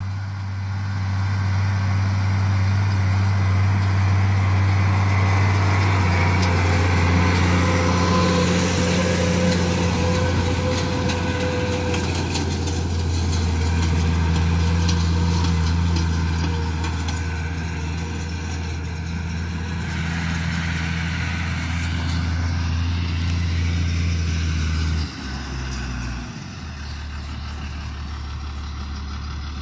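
Tractor diesel engine running steadily under way. Near the end its note drops suddenly and settles lower as the revs come down.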